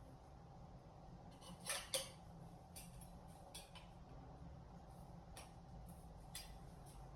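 Faint clicks and scrapes of tire irons working a dirt bike tire's bead over the rim, a few seconds apart, the two clearest close together a little under two seconds in, over a low steady hum.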